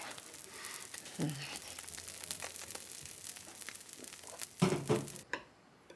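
Sparse, soft crackling and rustling, with a short low sound about a second in and a louder dull knock near five seconds in; the crackling stops abruptly shortly after.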